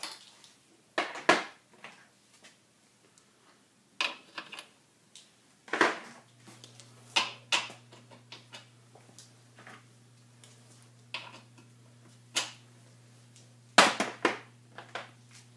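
Hand tools clinking and knocking against metal in irregular sharp clicks, some loud, as the strut's top mount bolts are worked loose. A steady low hum comes on about six seconds in.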